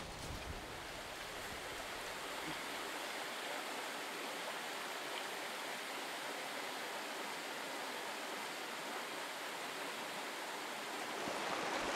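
Steady rushing of a shallow stream flowing over stones, even throughout and growing a little louder near the end.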